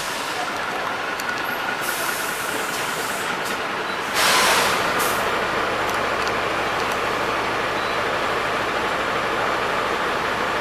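Diesel city bus running at a stand, with a loud hiss of compressed air lasting about a second, about four seconds in.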